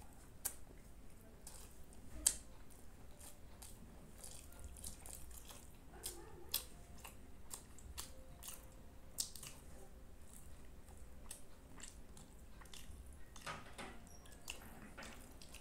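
Close-up eating sounds of a mouthful of rice and curry being chewed, with many sharp, wet mouth clicks and smacks, the loudest about two seconds in.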